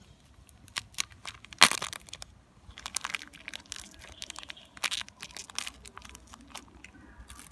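Foil snack packet crinkling and crackling as a young macaque grips it and bites at it, in irregular sharp crackles, the loudest about a second and a half in.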